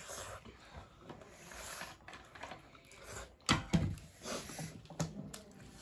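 Eating at a table: soft chewing and handling noises of food and dishes, with two sharp knocks close together about three and a half seconds in.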